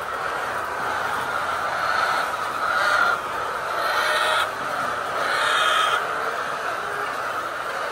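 A flock of layer chickens calling together in a dense, continuous chorus, swelling louder a few times.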